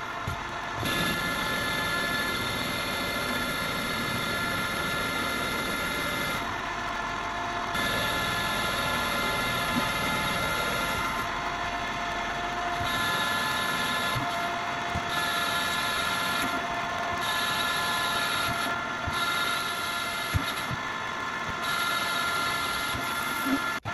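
Metal lathe turning a metal pulley blank with a TNGG carbide insert: a steady whine with several held tones, and a higher cutting hiss that switches on and off several times as the tool feeds. A few light ticks near the end.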